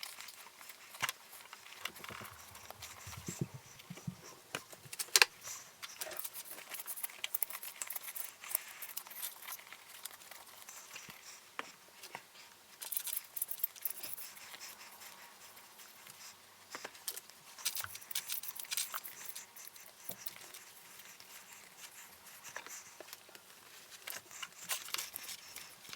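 Sped-up small clicks, taps and rattles of hand tools and small plastic and metal parts being handled as a radio-controlled truck is taken apart.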